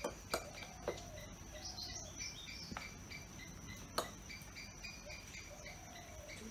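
A few light clicks of a metal spoon against ceramic bowls and a plate as food is served, over a steady background of insects and birds chirping.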